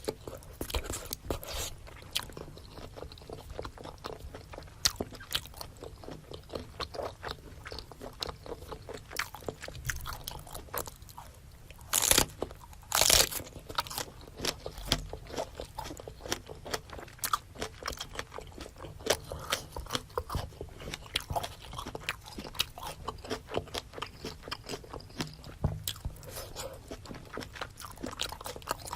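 Close-miked chewing and biting of spicy seafood boil, a steady run of small wet clicks. There are two louder crunching bursts about twelve and thirteen seconds in.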